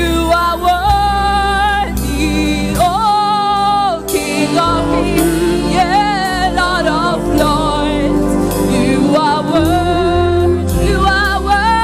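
Gospel choir singing with vibrato over a band with sustained bass and chords.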